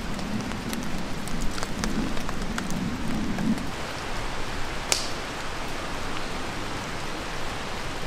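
Steady rain falling, with a few sharp clicks, the loudest about five seconds in.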